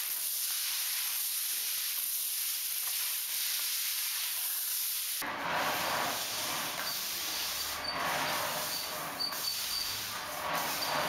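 An even hiss for about five seconds, then a broom pushing wet cement grout across cobblestones: a rougher, fuller scraping with a few knocks and some faint, short high chirps.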